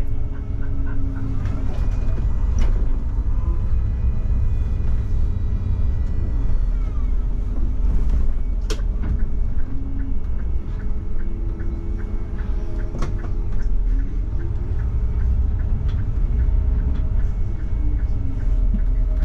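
Mercedes-Benz Citaro CNG city bus's gas engine running as the bus drives off. There is a steady low rumble, a whine that rises as it speeds up and falls again as it slows, and runs of regular ticking.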